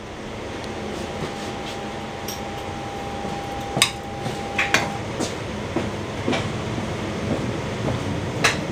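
Passenger train running, heard inside the carriage: a steady rumble of wheels on the rails that grows louder in the first second, with a few sharp clacks from the wheels on the track, the loudest about four seconds in and another near the end. A faint steady whistling tone runs under the first half.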